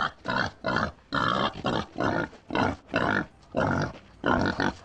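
Wild boar grunting in a rapid series of short, harsh grunts, two or three a second.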